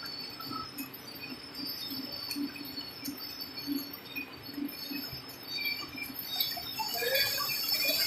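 Automatic plastic cutlery packing machines running, with a regular low beat a little under twice a second and short light clinks over a steady high whine. The clinks grow louder and more frequent near the end.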